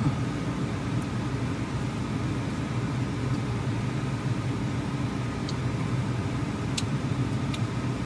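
Parked Nissan car idling, heard from inside the cabin: a steady low hum, with a couple of faint clicks near the end.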